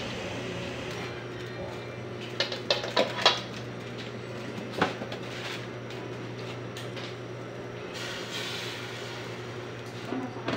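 Clinks and knocks of kitchen pots and utensils being handled: a quick cluster about two to three seconds in and one more sharp knock near five seconds, over a steady low hum.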